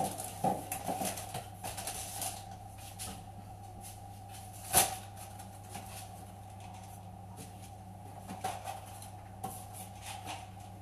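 Packets and objects being rummaged and handled in a kitchen wall cupboard: scattered light knocks and rustles, with one sharper knock about five seconds in. A steady low hum runs underneath.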